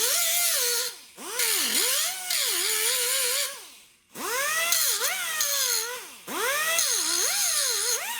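Electric grinder grinding the edge of a sheet-metal rust-repair patch in four short runs, its motor pitch sagging and recovering as it bears on the metal over a high grinding hiss. The motor briefly winds down between runs, about a second in, near four seconds and near six seconds.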